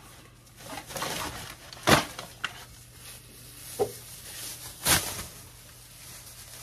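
Thin clear plastic trash bag rustling as it is pulled apart and shaken open, with two sharp cracks, about two seconds in and again about five seconds in, and a few smaller clicks.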